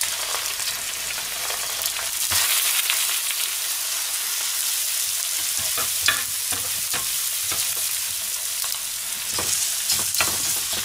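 Hiroshima-style okonomiyaki frying in oil in a frying pan, a steady sizzle as the cabbage-and-pork stack is set on two frying eggs. A metal spatula scrapes and knocks against the pans a few times, most sharply about six seconds in and again near the end.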